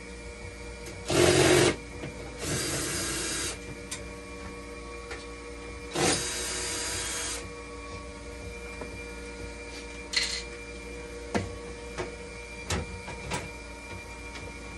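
A cordless drill-driver run in three short bursts of about a second each, over the steady hum of the running dialysis machine, followed by a few sharp clicks and knocks from parts being handled.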